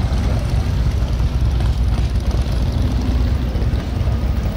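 Motorcycle engines running as several bikes, including a three-wheeled touring trike, ride slowly past; a steady, loud, low rumble.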